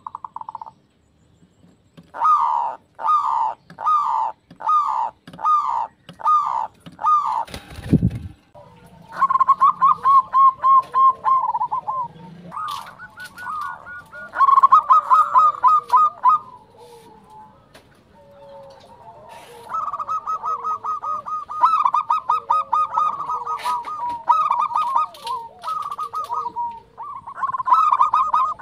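Zebra dove (perkutut) cooing. First comes a series of about seven evenly spaced staccato coos, then faster runs of rapid rolling notes. A dull thump falls about eight seconds in.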